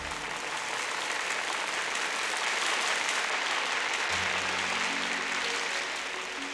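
Arena crowd applauding after a figure-skating routine's music ends, with soft sustained music notes coming in underneath about four seconds in.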